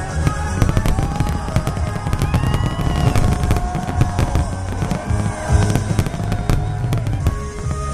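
Fireworks bursting in rapid, irregular bangs and crackles over loud music.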